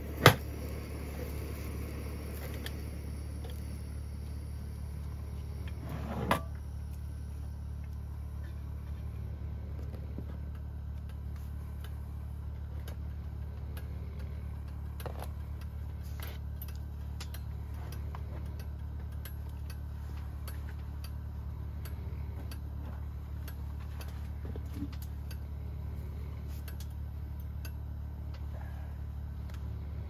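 Chopsticks and utensils clinking against a grill pan over a steady low hum. There is a sharp clack right at the start, another knock about six seconds in, then light scattered clicks.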